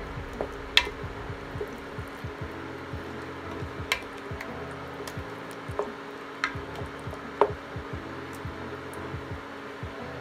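A wooden spoon stirring thick chili of ground beef and kidney beans in a stainless steel pot: wet squelching of the sauce with scattered clicks of the spoon against the pot, the sharpest about a second in and at about seven and a half seconds.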